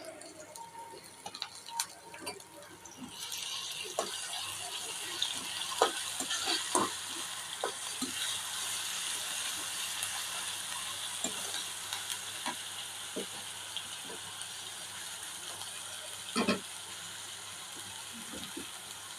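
Food sizzling in hot oil in a pan, the sizzle starting about three seconds in and running on steadily, with scattered clinks and scrapes of a utensil stirring it and one louder clank near the end.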